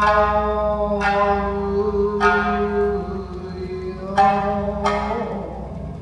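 Tokiwazu music: a singer holds one long note that wavers near the end, over five sharp shamisen plucks.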